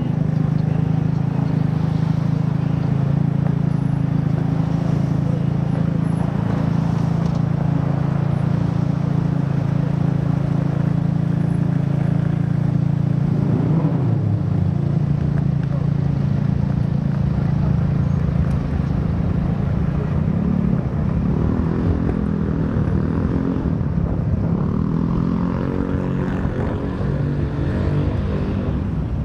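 A motor vehicle's engine idling with a steady low hum in street traffic. From about 19 seconds in the pitch starts shifting up and down as traffic gets moving.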